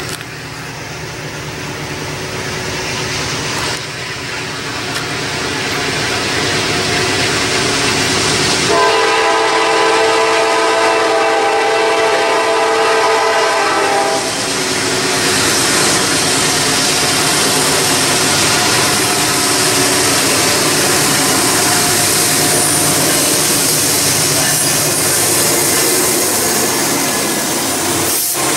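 Norfolk Southern freight train led by a GE D9-44CW diesel locomotive approaching and passing close by. About nine seconds in, its air horn sounds one long blast of about five seconds. Then the running of the three diesel locomotives, with wheels on rail, grows loud as they go past.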